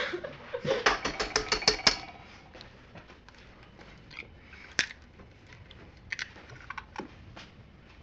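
Eggs being cracked into a mixing bowl: a quick run of light taps and clicks in the first two seconds, then scattered single clicks of shell against the bowl.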